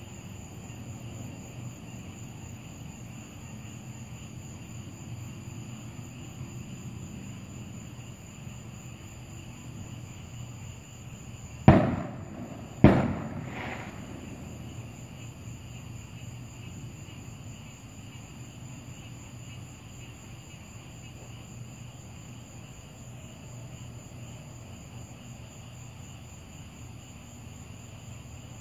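Two sharp, loud bangs about a second apart, with a fainter third just after, over a steady high-pitched whine and low hum.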